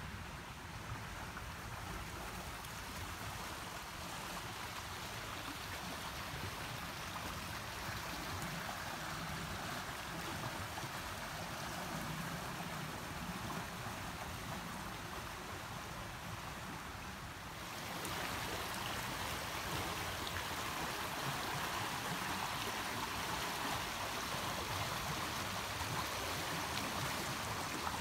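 Flowing stream water, a steady rush that grows louder about two-thirds of the way through.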